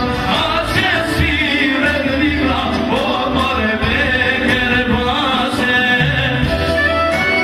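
Male singer performing an Albanian folk song live through a microphone, his voice wavering in ornamented runs over steady held notes of musical accompaniment.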